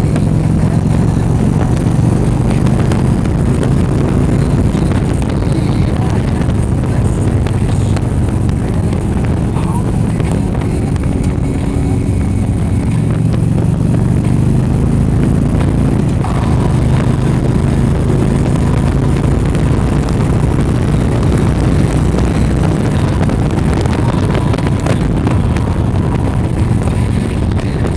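A motor vehicle running steadily, a low engine hum with road noise at an even level.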